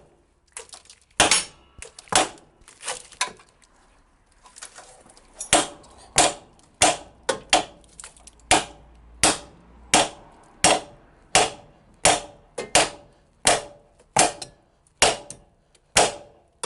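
Hammer striking steel on a car's front suspension with hard, ringing blows to drive a seized part loose. A few spaced blows, a short pause, then a steady run of about one and a half blows a second.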